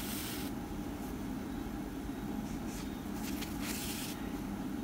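White yarn drawn through crocheted fabric with a yarn needle: a few short, soft rustling swishes over a steady low background hum.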